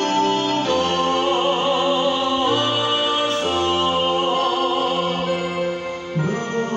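A man singing a slow song with vibrato on held notes, accompanying himself with sustained chords on a digital piano.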